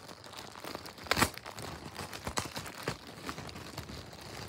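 Packaging being opened around a plush toy: irregular rustling and crinkling, with one louder tear about a second in.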